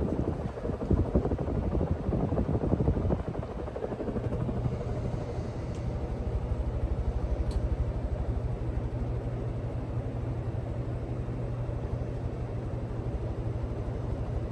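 Westinghouse 56-inch commercial ceiling fan running on high speed: a fast, even whoosh of the blades moving a lot of air, louder and gustier for the first three seconds or so, with a steady low motor hum that comes through clearly from about four seconds in.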